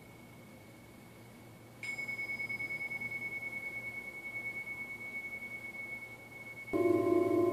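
Tibetan tingsha cymbals struck together about two seconds in, giving one high ringing tone with a slow pulsing waver that dies away over several seconds, after a fainter ring at the same pitch. Near the end a louder, lower struck metal instrument with several tones comes in suddenly.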